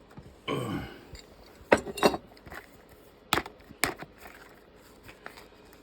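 Small hard parts being handled on a workbench: a rustle, then four sharp clicks and clinks spread over a couple of seconds.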